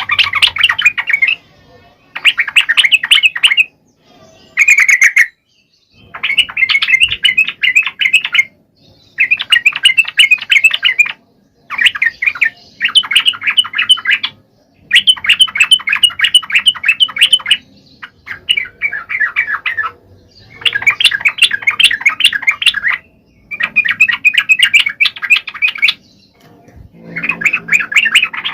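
Sooty-headed bulbul (trucuk) singing loudly in repeated phrases of rapid chattering notes, each one to three seconds long with short pauses between.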